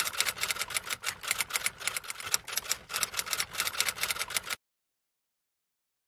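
Typewriter sound effect: a rapid, uneven run of sharp key clacks, several a second, that stops abruptly about four and a half seconds in, followed by dead silence.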